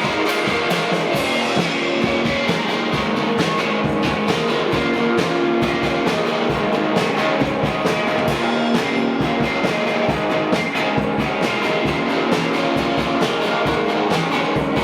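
Live rock band playing an instrumental passage: guitars over a steady drum beat, with no singing.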